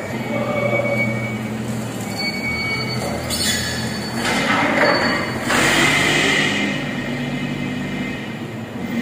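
A can-palletizing line running in automatic: a steady machine hum with thin squealing tones. From about three and a half seconds in, a louder stretch of noise comes as a forklift works at the roller conveyor.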